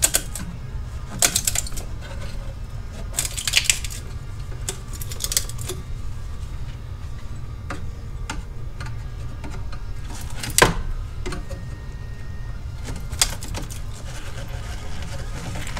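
Screwdriver prying and scraping at a freshly cut seam in a steel motorcycle exhaust head pipe: irregular metallic clicks, taps and short scrapes, the sharpest a single clink about ten and a half seconds in. A steady low hum runs beneath.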